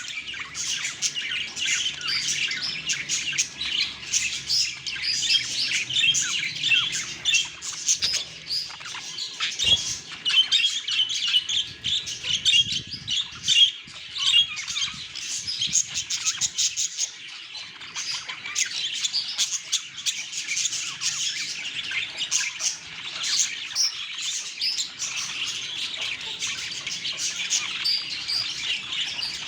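Budgerigars chattering and warbling, with fast rapid chirps, squawks and whistles overlapping continuously. A brief knock is heard about ten seconds in.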